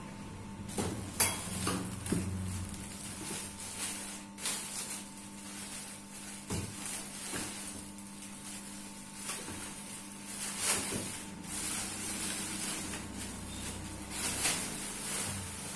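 Clear plastic packaging bags crinkling and rustling in irregular bursts as parts are unwrapped by hand, with a few light knocks of parts being handled.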